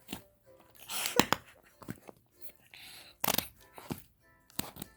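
Play-Doh slime being squeezed and pressed by hand, giving off short, irregular squelching and crackling noises with a few sharp clicks.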